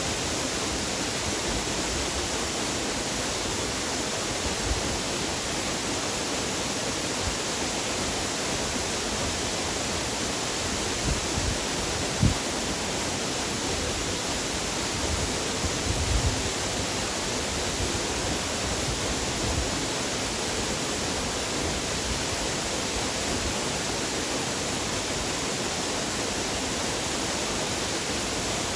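Waterfall rushing steadily: an even, unbroken wash of water noise, with a few short low thumps about twelve and sixteen seconds in.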